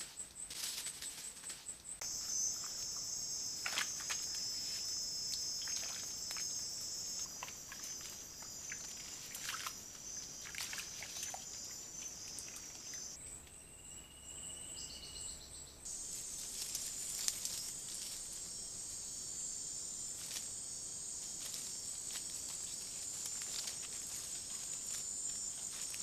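Tropical forest insect chorus, a steady high-pitched buzzing that changes abruptly several times as the camera-trap clips cut, with scattered short rustles and crackles and one brief whistle around the middle.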